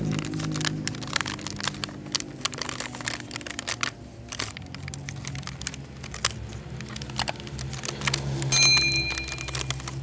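Crinkly plastic toy packaging being torn open by hand, with many small crackles and rips, over a low engine hum. Near the end there is a click and then a ringing bell chime, the sound effect of a subscribe-button animation.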